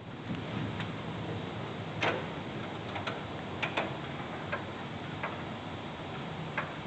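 Semi-automatic (MIG) welding work on a steel toolbox: a steady low hum with about a dozen sharp, irregularly spaced ticks and clicks, the loudest about two seconds in.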